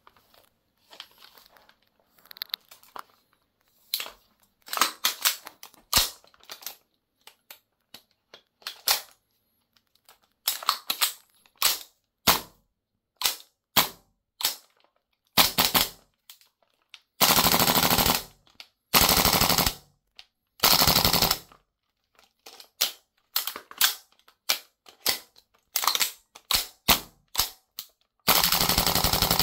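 APFG MCX gas blowback airsoft rifle with a VFC lower receiver, fired in single shots and in full-auto bursts: sharp cracks of the gas-driven bolt cycling. A few faint clicks come first. Four longer bursts of rapid fire follow later, the last near the end.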